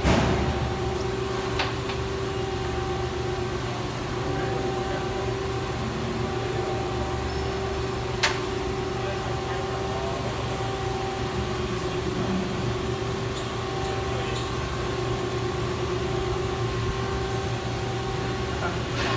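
CNC turning-milling machine cell with gantry loader running: a steady machine hum with a constant tone over a low rumble, and a single sharp click about eight seconds in.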